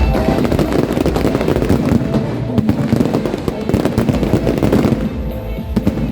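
Fireworks crackling and popping in a dense, rapid barrage over background music. The crackle thins out about five seconds in.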